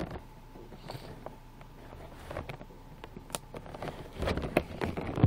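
Cardboard toothbrush box being handled and opened: scattered clicks, rustles and scrapes of the card and its flaps, busier in the second half.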